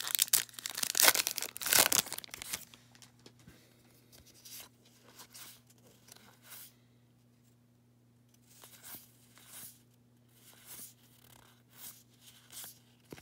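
A Topps Heritage baseball card pack wrapper being torn open and crinkled, loud for the first two seconds or so. Then softer short swishes of cards being slid off the stack one after another, about once a second.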